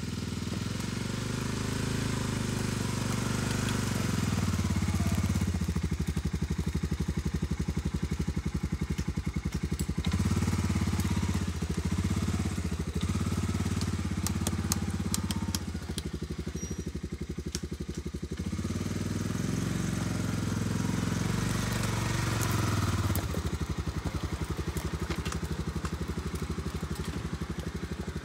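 Honda Foreman ATV's single-cylinder four-stroke engine running as it is driven slowly, its pitch and loudness rising and falling with the throttle. A few sharp clicks partway through.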